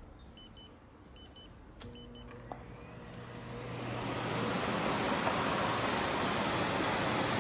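A handheld air-quality particle meter gives a few short electronic beeps, then a bagged vacuum cleaner is switched on: a low hum about two seconds in, and the motor spins up into a steady rushing run over the next couple of seconds.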